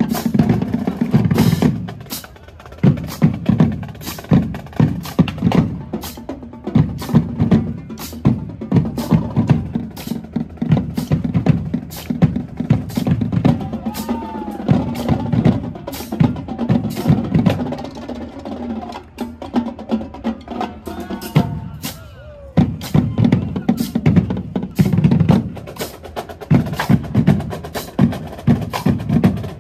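Drumline playing a fast cadence: snare drums and a row of bass drums with crash cymbals, in rapid stick strokes. The deep drum part drops out briefly a few times.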